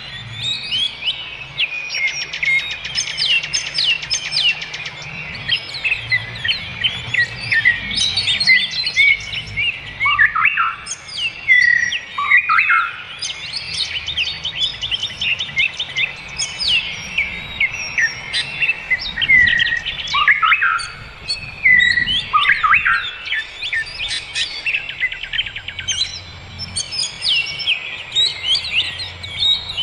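Several wild birds chirping and singing at once, a dense chorus of short high chirps with a few downward-sliding calls mixed in.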